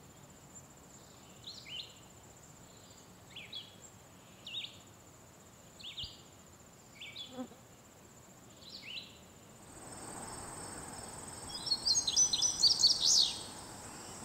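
A string of short, falling bird calls, often in pairs, over a steady high insect whine. About ten seconds in, a wash of outdoor noise comes up, with a burst of loud, rapid high chirping near the end.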